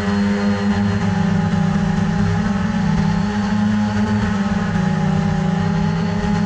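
ZLRC SG906 Pro quadcopter's brushless motors and propellers humming steadily in flight, heard from the GoPro mounted on the drone, the pitch wavering slightly.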